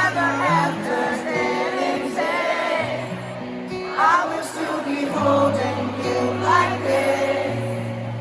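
Live band music: held keyboard and bass chords that change every second or two, with a singing voice sliding and wavering over them.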